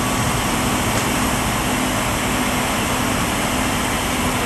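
Large motorcoach's diesel engine idling steadily close by: a loud, even rumble with a constant low hum.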